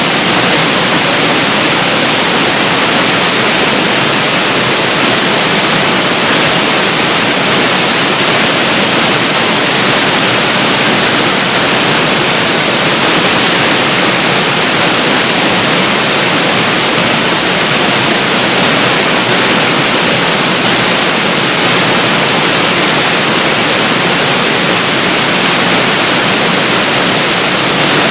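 Large artificial waterfall: water falling steadily and crashing into the pool below, a loud, even rush with no change.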